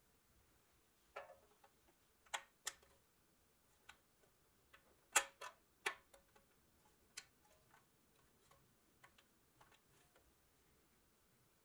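Light clicks and taps of a white panel being handled and pressed into the rear end of a pressed-steel toy truck body: scattered sharp clicks, several close together after about a second, the loudest about five seconds in.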